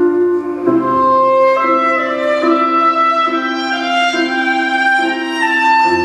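Slow instrumental music with a violin melody of long held notes over a sustained accompaniment, the notes changing about once a second.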